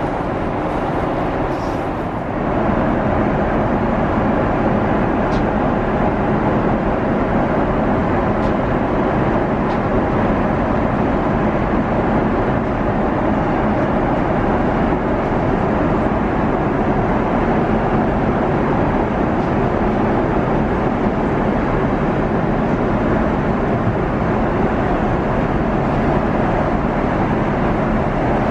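Steady cabin noise inside a Boeing 777-300ER in flight: an even rush of engine and airflow noise. It steps up slightly about two seconds in.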